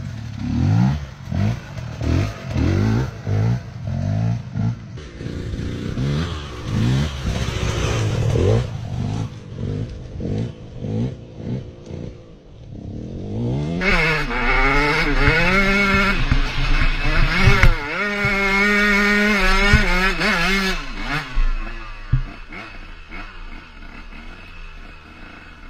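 KTM motocross bike engine being revved hard: quick repeated throttle blips, each a short rising sweep, for the first third. After a brief lull about halfway, a louder run of rising and falling revs lasts several seconds, then dies away near the end.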